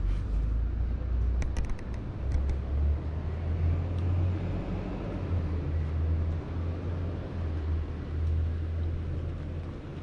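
Street ambience on a quiet city road while walking: a steady low rumble with distant car traffic, swelling a little in the middle, and a few light clicks between one and a half and two and a half seconds in.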